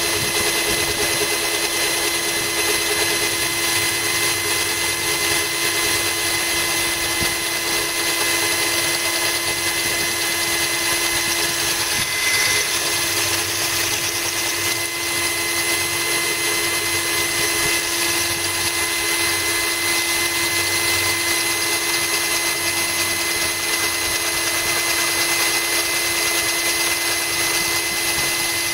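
Cordless drill running steadily, its bit grinding into a glass bottle that is being cooled with a trickle of water from a hose.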